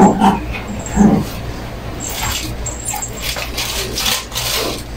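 A dog whimpering in short whines, loudest at the start and about a second in, followed by quieter rustling and scraping of a plastic bag and a plastic food container being handled.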